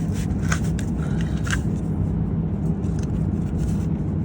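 Truck engine idling steadily, with a few light clicks and scrapes in the first second and a half from hands working at the pressure switch's electrical plug.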